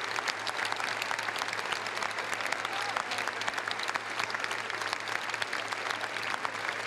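A large audience applauding steadily in a theatre, a continuous dense patter of many hands clapping.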